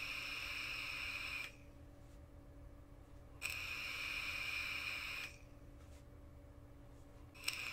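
Draws on a Kangertech Subtank Nano tank with its 0.5-ohm OCC coil firing at 28 watts: air hissing and whistling through the airflow slots in pulls of about two seconds. Each pull starts sharply. One pull ends about a second and a half in, another runs from about three and a half to five seconds, and a third begins near the end.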